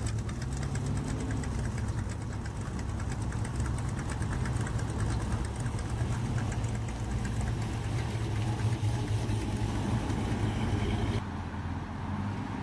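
A car engine idling with a steady, even pulse; the sound changes abruptly about eleven seconds in.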